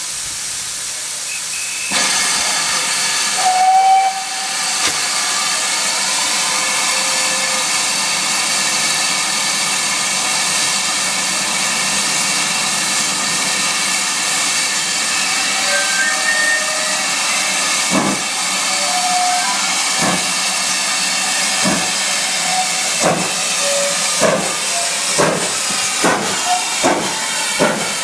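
GWR Manor class 4-6-0 No. 7820 Dinmore Manor hissing steam loudly, with a brief whistle blast about four seconds in. From about eighteen seconds in its exhaust beats start, slow at first and quickening, as the locomotive pulls away with its train.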